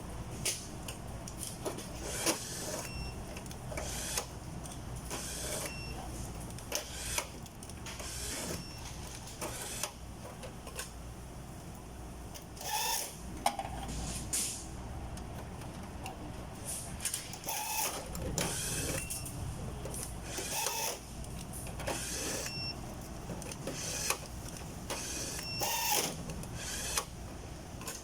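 Machinery noise: a steady low hum with repeated short hissing and clattering bursts every second or two, and a few brief high beeps.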